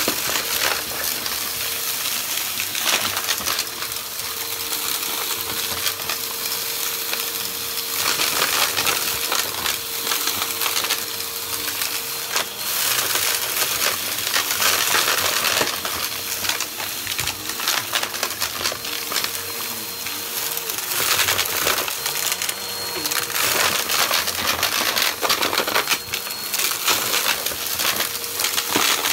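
Bagless upright vacuum cleaner running over carpet with its brushroll, sucking up a pile of crunchy debris. The bits clatter and rattle up through it in quick clicks over a steady motor hum.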